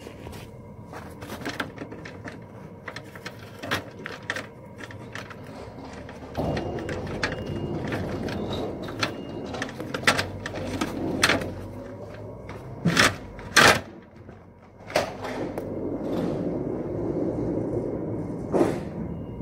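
A string of sharp knocks and clicks over a low rumbling noise that swells in two long stretches, in the middle and near the end.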